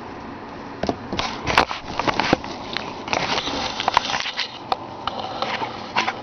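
Close, irregular scuffing, rustling and clicking right on the microphone, starting about a second in: a wolf-hybrid puppy nosing and mouthing at the camera while it is jostled.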